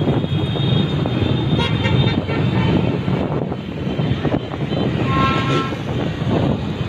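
Dense motorbike and scooter traffic: engines and road noise heard from a moving motorbike in the middle of the pack. A horn beeps about five seconds in.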